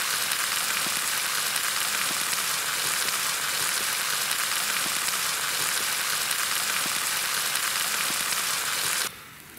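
Meat sizzling in a frying pan over campfire coals, a steady frying hiss that cuts off suddenly near the end.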